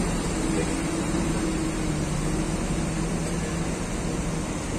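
Intercity bus engine idling, a steady hum with no change in pitch.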